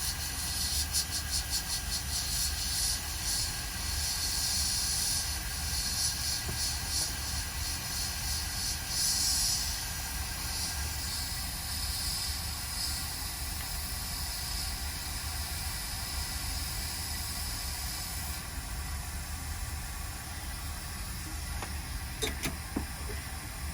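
Hot air rework station blowing on the logic board with a steady airy hiss that flickers and then weakens about 18 seconds in, over a steady low hum. There are a few short clicks near the end.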